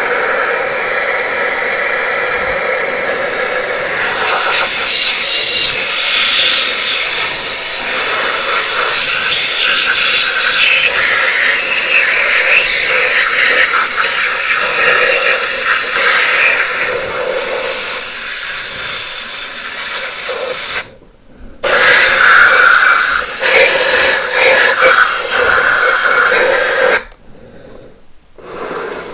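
Compressed-air solvent spray gun blasting a jet of thinners over a cylinder head: a loud, steady hiss. It breaks off briefly about two-thirds of the way through, then again for a couple of seconds near the end.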